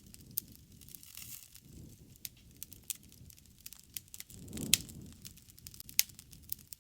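Wood campfire crackling: scattered sharp pops and snaps over a low, steady burning noise, with a brief louder swell and one strong pop about two-thirds of the way through.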